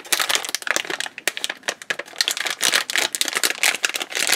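Plastic anti-static shielding bag crinkling and rustling as it is handled and opened to take out a circuit board.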